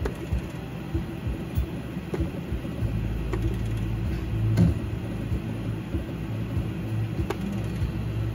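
Slot machine reels spinning, with the machine's low rumbling spin sound effect and a few sharp clicks.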